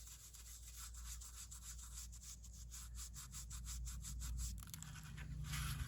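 Quick, even rubbing strokes, several a second, of ink being worked onto a folder or rubber stamp in a craft journal.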